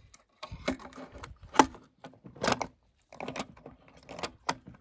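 Die-cast toy cars and a plywood toy track being handled: irregular clicks and clatter in several short bursts.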